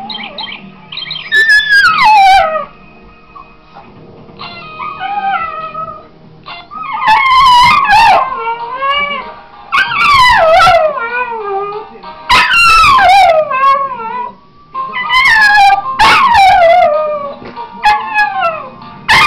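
Patterdale–border terrier cross dog howling along to music: about six long howls, each starting high and sliding down in pitch, with music playing more quietly between them.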